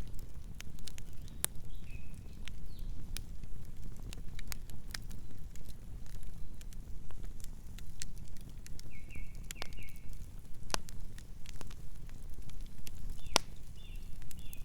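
Campfire burning with a steady low rumble and scattered sharp crackles and pops. A few brief high chirps come through near the start, around the middle and near the end.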